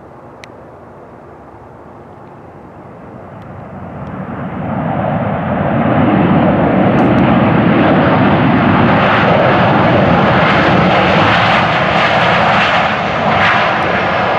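Boeing 737-700's CFM56 jet engines on reverse thrust during the landing roll. The noise swells from a low rush over about three seconds, from around three seconds in, to a loud, steady roar that holds as the jet rolls past.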